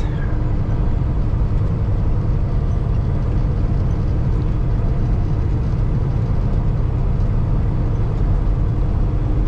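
Steady in-cab drone of a Kenworth T680 semi truck cruising on the highway: the PACCAR MX-13 diesel running at an even pace, mixed with road noise, with no change throughout.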